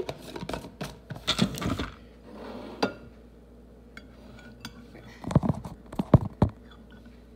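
Kitchen clatter as containers are handled: clicks and rattling first, then a metal spoon clinking and knocking in a glass jar of relish, with several heavier knocks in the second half.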